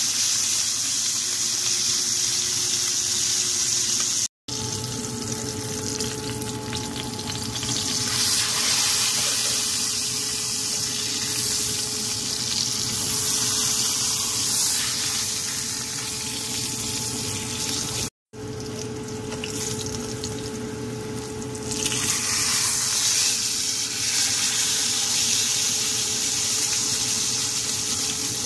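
Pork chop frying in hot oil in a cast-iron skillet: a steady loud sizzle, with a steady hum underneath. The sound breaks off for an instant twice, about four seconds in and again about eighteen seconds in.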